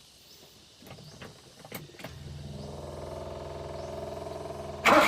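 A few light clicks, then the Suzuki F6A three-cylinder engine cranks on its starter for about three seconds and catches near the end, suddenly much louder as it starts running.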